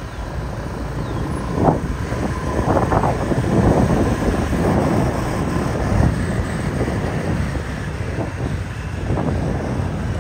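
Wind buffeting the microphone over the steady running of a motor scooter engine on the move.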